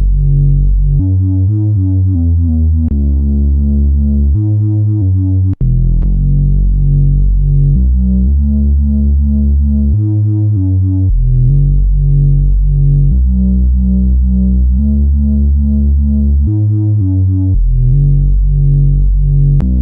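Ad-vantage 03m monophonic semi-modular analog synthesizer playing a low, repeating bass sequence, stepping to a new note about every second. The sound drops out for an instant about five and a half seconds in.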